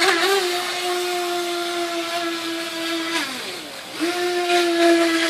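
Electric motor of a Hobbyking Serpent 2 Mini V-Hull RC racing boat running at a steady high-pitched whine. About three seconds in it drops in pitch and fades as the throttle is let off, then about four seconds in it comes straight back up to the same steady whine.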